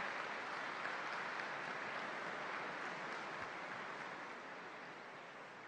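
Applause from a large audience, slowly fading.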